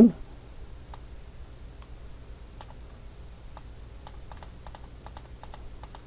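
Faint, irregular clicking of a computer mouse as steps are set one by one, over a low room hum.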